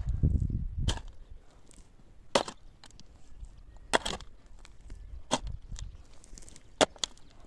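A long-handled shovel blade strikes into dry, clumpy soil as a hole is dug by hand: about five sharp strikes roughly a second and a half apart, with a low scrape of earth in the first second.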